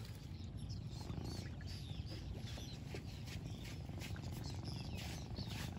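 Swallows chirping faintly and repeatedly over a low, steady rumble.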